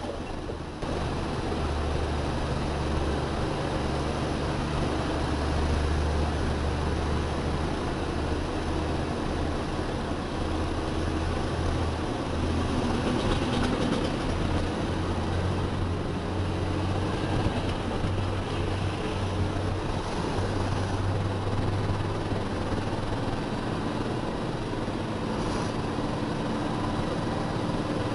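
Isuzu self-loader truck's diesel engine running as the truck drives, heard from inside the cab as a steady low drone with road noise.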